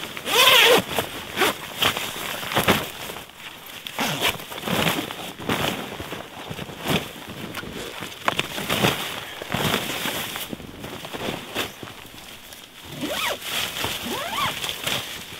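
A zipper on a red nylon sled bag being run at the start, then nylon fabric rustling and snow crunching as the bag and gear are handled, with irregular scrapes and knocks. Another zipper-like run comes near the end.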